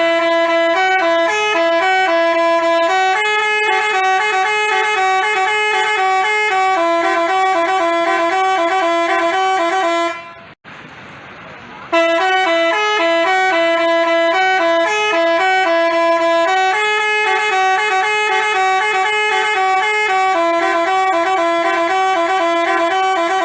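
Telolet basuri bus horn playing a melody in short stepped notes with two voices together. It stops about ten seconds in, then starts the same tune again a second and a half later.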